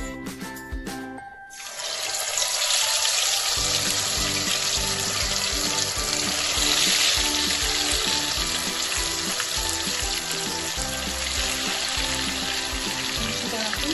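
Rohu fish pieces in a wet besan-and-spice marinade being deep-fried in hot oil in a kadai: the oil bursts into a loud, steady sizzle about a second and a half in, as the pieces go in, and keeps sizzling. Background music plays underneath.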